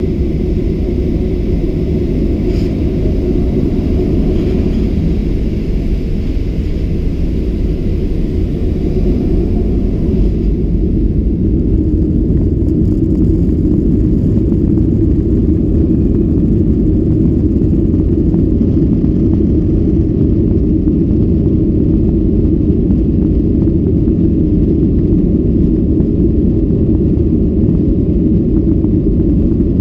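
Boeing 737-800 taxiing, heard from inside the cabin: a steady low rumble from the CFM56 engines at taxi power and the airframe rolling along the taxiway.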